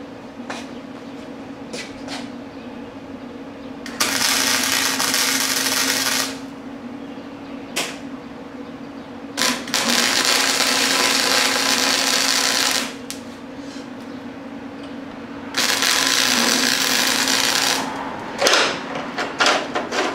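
Electric arc welding in three bursts of about two to three seconds each, an even crackling hiss that starts and stops abruptly, over the welder's steady hum. Near the end come a run of sharp metal taps.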